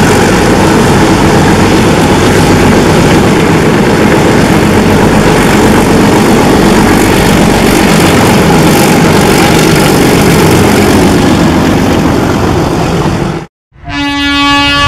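Twin ALCo WDM-3A diesel locomotives, each with a turbocharged V16 ALCo 251 engine, working hard under load: a loud, steady, heavy engine rumble. It cuts off suddenly near the end, and a multi-tone locomotive horn starts to sound.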